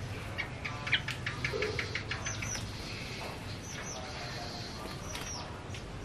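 Male yellow-vented bulbul singing: quick runs of short, sharp chirping notes, one run in the first half and another about halfway through.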